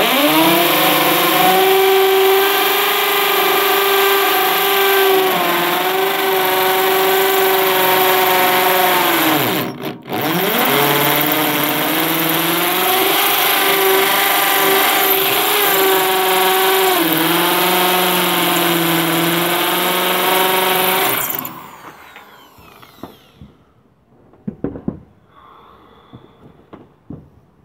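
Corded electric drill running under load, drilling down into a chimney top, a steady whine that wavers slightly in pitch. About ten seconds in it stops, winding down in pitch, starts again at once and runs for about another eleven seconds before cutting off; a few faint knocks follow.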